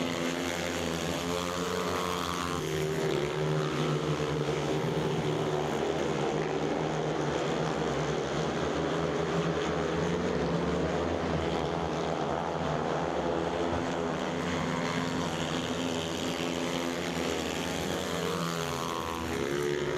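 Several speedway motorcycles racing together, their 500 cc single-cylinder methanol engines running hard. The engine notes rise and fall in pitch as the bikes go round.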